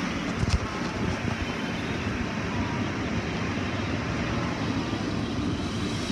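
Automatic car wash working over the car, heard from inside the cabin: water spray and wash equipment make a steady rushing noise. One thump about half a second in.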